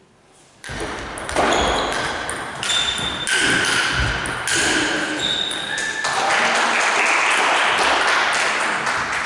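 A table tennis rally: a series of sharp clicks of the ball on bats and table, each ringing on in the hall. About six seconds in, as the point ends, a dense steady crowd noise takes over.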